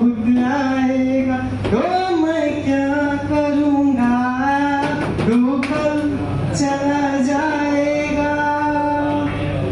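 A man singing a slow song, holding long notes, with breaks for breath about two and five seconds in.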